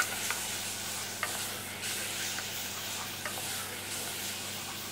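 Carnaroli rice and chopped onion sizzling in olive oil in an aluminium pot, stirred with a wooden spoon that clicks lightly against the pot a few times: the rice is toasting, the first stage of a risotto.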